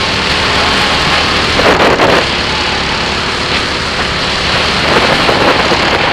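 Birel N35 rental kart running on track: the engine drones steadily under a loud rushing noise, with a brief louder surge about two seconds in.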